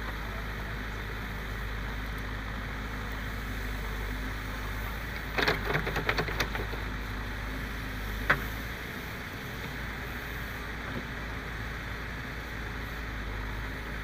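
Backhoe loader's diesel engine running steadily as it works the backhoe arm. About halfway through, a short clatter of clods and stones strikes the steel body of the tipper as a bucket of soil is dumped, and a single sharp knock follows a couple of seconds later.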